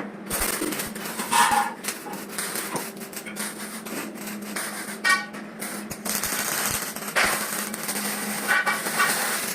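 Metalworking on steel: a few short ringing clangs, about a second and a half, five and eight and a half seconds in, over a steady hum and hiss.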